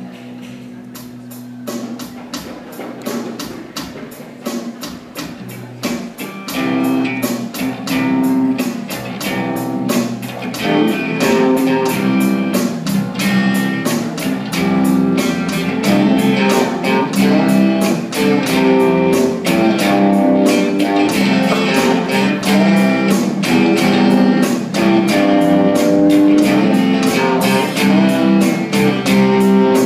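A live rock band playing electric guitars and drums with a steady beat. It starts softer and grows louder over the first ten seconds or so as fuller guitar parts come in.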